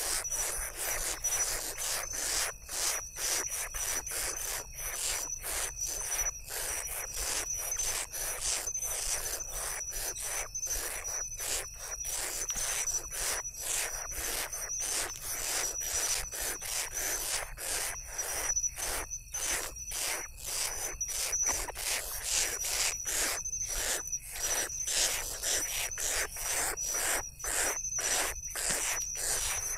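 Grass owl chicks begging: rasping hisses repeated about twice a second, with a steady high insect trill throughout.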